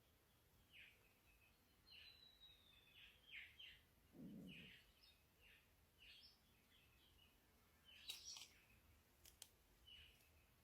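Faint bird chirps, short falling notes repeated about once a second, with one longer gliding note about two seconds in. A brief low rumble comes about four seconds in, and a few sharp clicks near the end.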